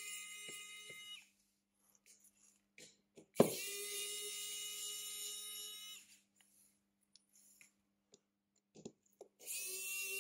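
A small electric motor tool whining steadily in bursts. It cuts out about a second in, starts again with a sharp click about three and a half seconds in, stops around six seconds, and starts again near the end, with faint light clicks in between.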